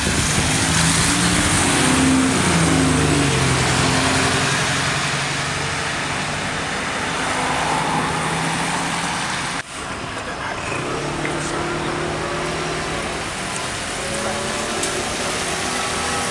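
A large vehicle's engine running amid traffic noise, its note falling and then holding steady. The sound breaks off abruptly about ten seconds in, and a similar engine note takes over.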